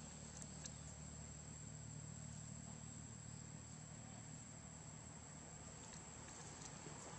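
Faint forest ambience: insects keep up a steady, thin, high-pitched drone over a low hum, with a few faint ticks.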